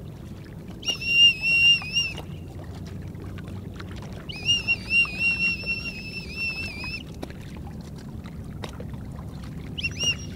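Safety whistle blown in three shrill, warbling blasts: a short one about a second in, a longer one of nearly three seconds in the middle, and a third starting near the end, over a low steady background noise. The whistle is a distress call for help from a stalled jet ski.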